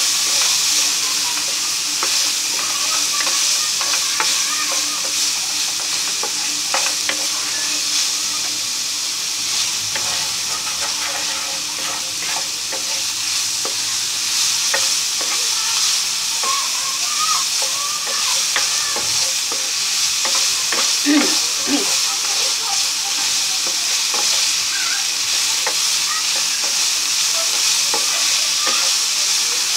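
Diced pork and sliced hotdogs sizzling steadily as they fry in a nonstick pan, with a wooden spatula scraping and tapping the pan in short scattered clicks as they are stirred.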